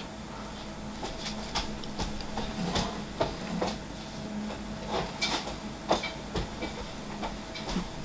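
Plastic bottles and a jug of detailing liquid being handled: scattered light clicks and knocks, over a faint steady hum.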